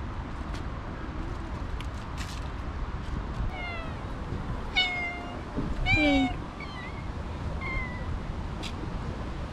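A cat meowing: a run of four or five short meows starting a few seconds in, the loudest about six seconds in, over a steady low background rumble.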